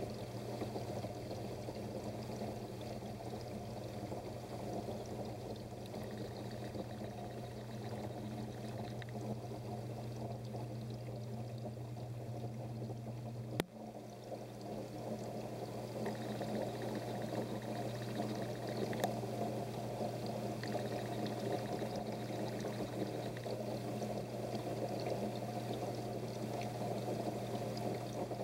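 Water pouring and splashing steadily from a fish-tank filter or pump outflow over a constant low electric hum. There is a single sharp click a little before halfway.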